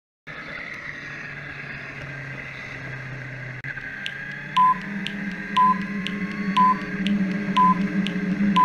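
Electronic background music starting up: a steady synth drone, then from about four and a half seconds a short high beep once a second over light ticks twice a second.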